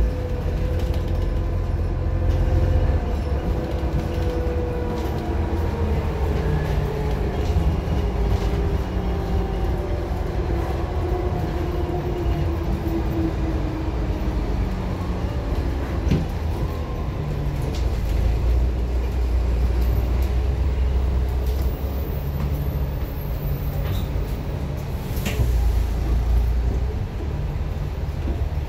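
A KMB bus's diesel engine and drivetrain heard from inside the moving bus: a steady low drone with a whine that slowly falls in pitch over the first dozen seconds, then climbs again. A few sharp clicks and rattles come through in the second half.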